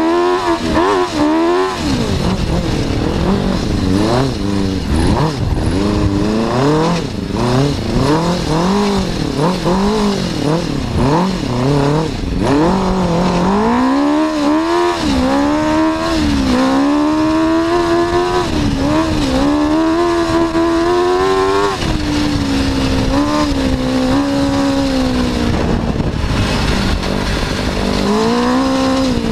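Suzuki RF600 motorcycle inline-four engine in an off-road buggy, revving up and down in quick short bursts for about the first twelve seconds. It then holds higher revs for several seconds, settles a little, and rises again near the end.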